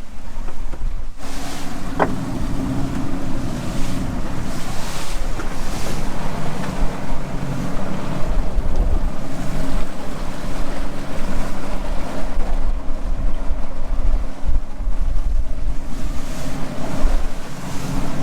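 Wind buffeting the microphone on a small boat in choppy water, with a boat engine running steadily underneath. A brief sharp click about two seconds in.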